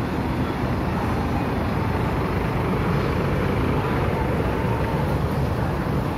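Steady rumble of city street traffic: cars and motorcycles passing.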